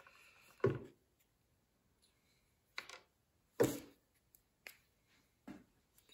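Handling noises: about five light knocks and clicks, spaced apart, the loudest a little past the middle, from working with the CA glue and activator bottles on a subwoofer's voice coil and spider.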